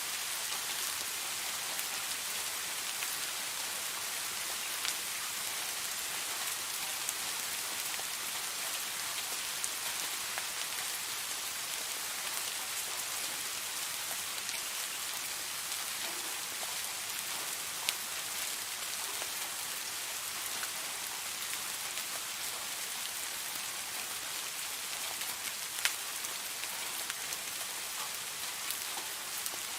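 Steady rain falling, an even hiss dotted with individual drop ticks, a couple of them sharper and louder about 18 and 26 seconds in.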